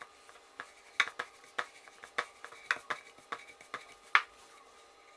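A rolling pin rolling out flour-dusted stuffed dough on a wooden rolling board. It makes a run of light, irregular clicks and taps, about three a second, which stop about four seconds in.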